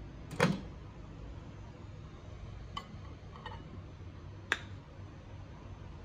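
EuropAce microwave oven's door latch snapping open as the door is pulled by its handle, a loud click about half a second in. A few lighter clicks follow, then a sharp clink about four and a half seconds in as a ceramic plate is set onto the glass turntable.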